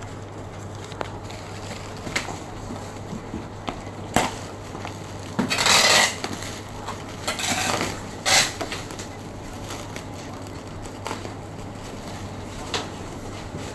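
Clatter, knocks and rustling from handling a boxed mini freezer and its packaging, with a louder scraping rustle about six seconds in and a sharp knock a couple of seconds later.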